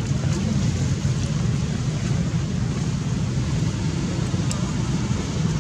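Steady low rumbling background noise with a few faint ticks.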